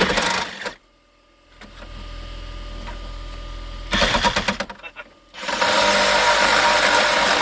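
Reciprocating saw (Sawzall) cutting into the truck's dash around the radio opening, in three spells: a short burst at the start, another about four seconds in, and a longer steady cut from about halfway through.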